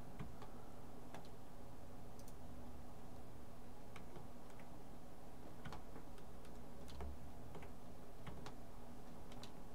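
Computer mouse clicks, sharp and irregular, about a dozen spread unevenly over a steady low hum.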